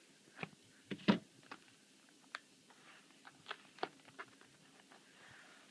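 Light handling noises: a scatter of soft clicks and taps, the loudest about a second in.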